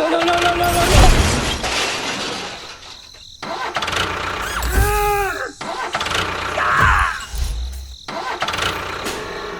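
Engine or motor sounds in short clips with abrupt cuts between them, and a brief pitched tone that rises and falls about five seconds in.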